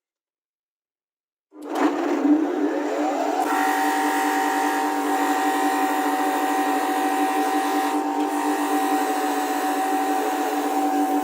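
An electric power tool motor switches on about a second and a half in, spins up over the next two seconds, then runs at a steady speed with a steady whine.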